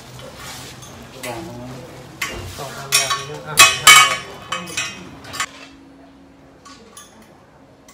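Black steel tube parts of a home exercise machine clanking and clinking together as they are handled and pulled from crinkling plastic wrapping. There is a run of sharp knocks and rustles through the first five and a half seconds.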